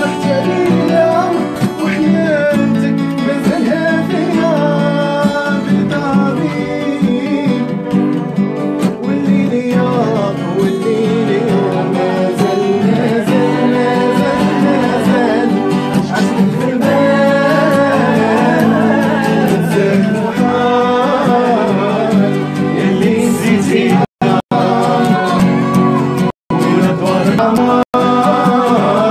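Live music led by a plucked string instrument, with a wavering melody over it. The sound cuts out briefly three times near the end.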